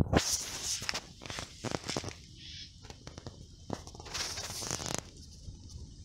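Footsteps rustling through grass, with irregular scuffs and a few short clicks.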